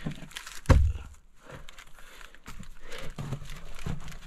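Someone moving through a narrow earth tunnel: clothing and hands scraping and rustling against dirt and rock, with scattered knocks and one dull thump under a second in.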